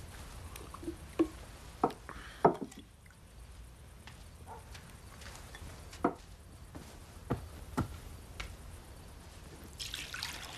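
A handful of sharp knocks and clinks of earthenware vessels being carried and set down, with water starting to pour into a basin near the end.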